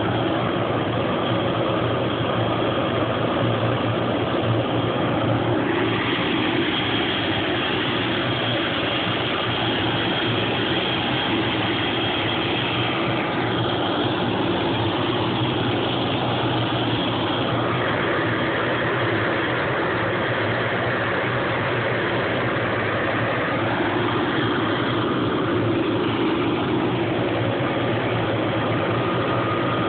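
Hughes 369D helicopter's Allison 250 turboshaft running steadily at idle on the ground, a constant engine noise with a high turbine whine that fades for a few seconds in the middle and comes back.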